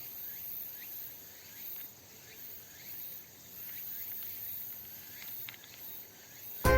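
Faint outdoor background hiss with scattered short, rising chirps, like insects calling.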